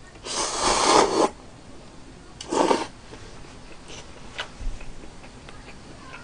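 Instant cup noodles slurped off chopsticks: a long slurp of about a second, then a shorter one about two and a half seconds in, followed by quiet chewing with faint mouth clicks.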